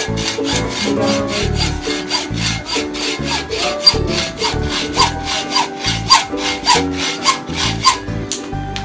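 Rhythmic saw strokes, about two a second, cutting through a mountain bike's handlebar to shorten it, with background music and a bass line underneath.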